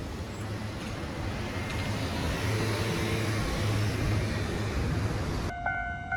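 Vehicle noise at a street rail crossing, a steady rumble with a low hum that grows louder for a few seconds. Near the end it cuts off suddenly and background music with a repeating pulsed tone begins.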